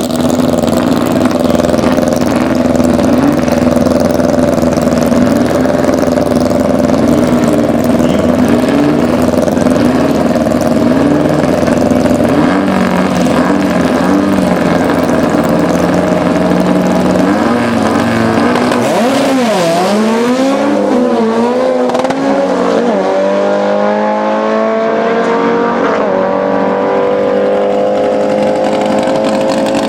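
A drag-racing Volkswagen engine runs loud and steady. About two-thirds of the way in it is revved up and down several times, then its pitch climbs slowly and steadily.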